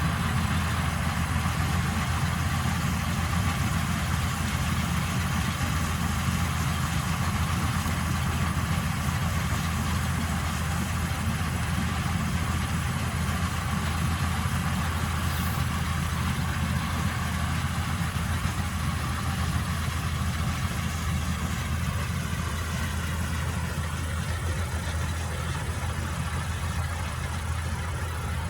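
Old Vistula KZB-3B combine harvester running steadily, its engine's deep, even drone the loudest sound. It eases off slightly near the end.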